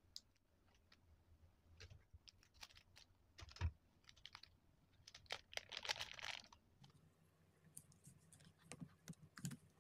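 Faint, scattered clicks and taps of a utensil and small sachets being handled against paper Maggi cup-noodle bowls, with one sharper knock about three and a half seconds in and a brief rustle around six seconds in.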